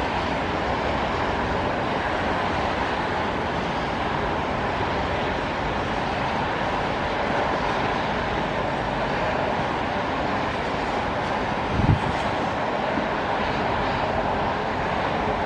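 Steady hiss of highway traffic on rain-wet pavement, tyres swishing on the wet road, with a single brief low thump about three-quarters of the way through.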